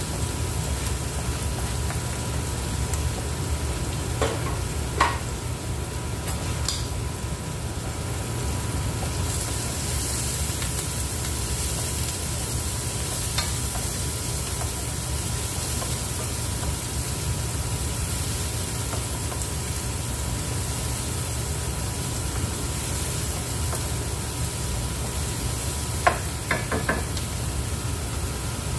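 Diced onions sizzling steadily in hot oil in a non-stick frying pan. A few light knocks come from a wooden spoon against the pan as they are stirred, about four seconds in and again near the end.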